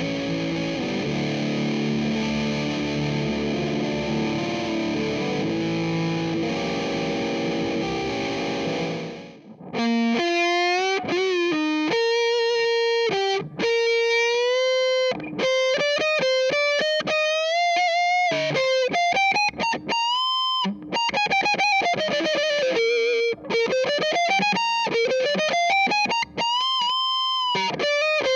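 1978 Gibson EDS-1275 double-neck electric guitar played through a Vick Audio Violet Ram's Head fuzz pedal into an Orange AD30 amp. Thick fuzzed chords run for about nine seconds and cut off. After a short gap come single-note lead lines with string bends and long sustained notes.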